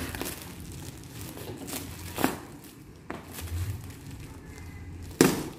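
Hands handling a parcel wrapped in black plastic and packing tape, the plastic crinkling in a few short, sharp bursts, with a louder sharp crackle near the end.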